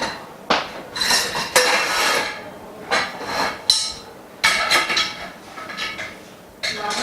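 Frame bars of a dust-free workstation knocking and clinking against each other as they are fitted together: about seven separate ringing knocks at irregular intervals.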